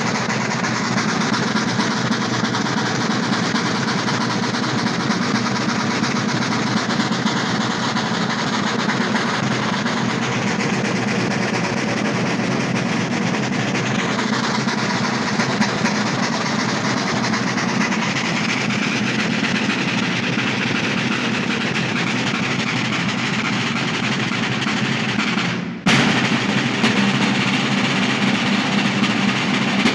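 Ensemble of Sicilian tamburi, large two-headed side drums beaten with sticks, playing a dense, continuous drumming together. The sound cuts out for an instant near the end, then the drumming carries on.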